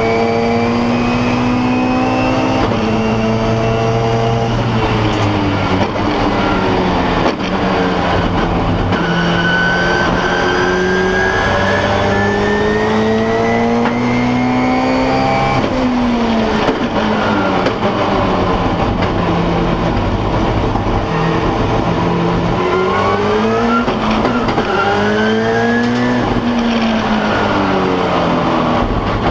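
Turbocharged Subaru flat-four race engine heard from inside the cockpit at full pace on a flying lap. The engine note climbs and falls with the gear changes and braking, with a sharp drop in revs about halfway through and several quick rises and drops near the end.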